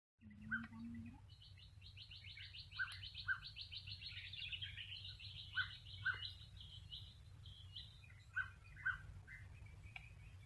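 Birds calling outdoors. A fast twittering trill runs from about a second in to the middle, and short chirps come in pairs about every two and a half seconds throughout.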